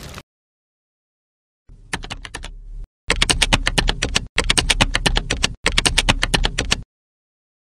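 Computer keyboard typing: a few scattered key clicks about two seconds in, then three fast runs of keystrokes, about ten a second, that cut off abruptly near the end.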